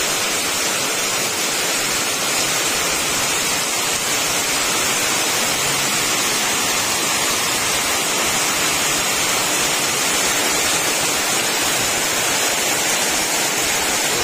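Heavy rain pouring down without let-up, a loud steady hiss.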